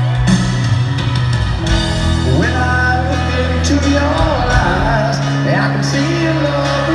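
Live rock ballad heard from the arena stands: piano and held keyboard notes playing slowly. A voice comes in singing about two and a half seconds in, its notes wavering up and down.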